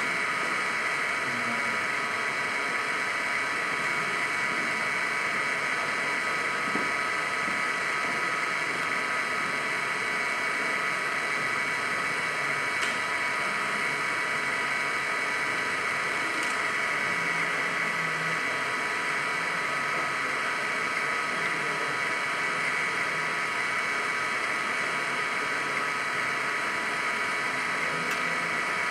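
A steady, unchanging buzzing drone with a fixed high whine in it and no distinct events.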